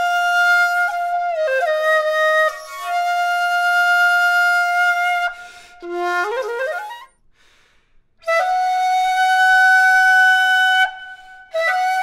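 Short bamboo shakuhachi flutes played solo. Long held notes are followed by a quick rising run a little past the middle, then a break of about a second. A long held note then sounds on the next, shorter shakuhachi, and a new phrase begins near the end.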